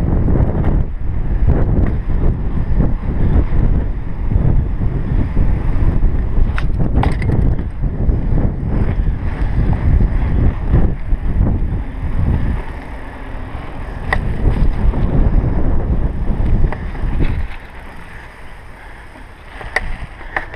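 Wind buffeting a chest-mounted action camera's microphone while a bicycle is ridden, with tyre noise, rattles and now and then a sharp click from the bike. The noise drops off clearly for the last few seconds.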